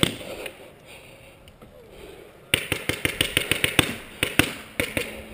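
Rapid paintball fire: a quick run of sharp pops, five or six a second and uneven, starting about two and a half seconds in, after a quieter stretch with a single pop at the start.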